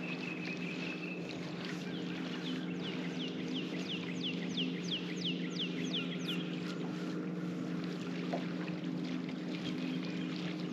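Bow-mounted electric trolling motor of a bass boat humming steadily. Midway, a bird sings a quick run of descending whistled notes.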